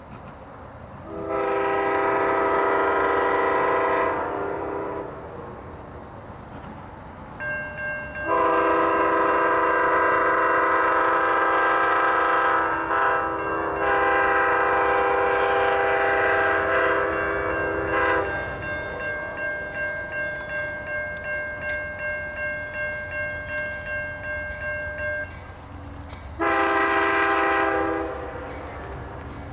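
Locomotive air horn sounding for a grade crossing: two long blasts, then a short one. Under and between the blasts a crossing-signal bell rings steadily at about two to three strikes a second.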